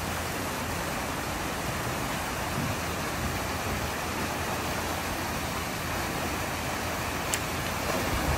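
Steady rush of water pouring out of the ends of two water slides and splashing into the splash pool.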